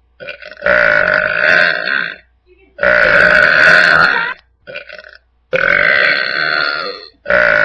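A person burping loudly in long, drawn-out belches, three in a row of about a second and a half each, with a fourth starting near the end. Short, quieter sounds come just before some of them.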